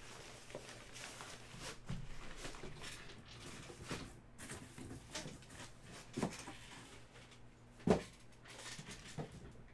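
Quiet handling noises: scattered soft knocks and rustles of boxes and packaging being moved, with one louder thump about eight seconds in.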